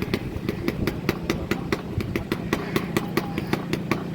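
A small engine idling with a steady, even beat of about six or seven pulses a second.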